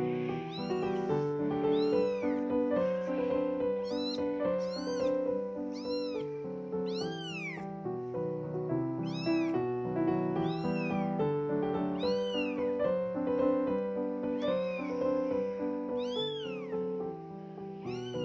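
Two-week-old calico kitten meowing over and over, about once a second, each cry high-pitched, rising then falling. Background music plays throughout.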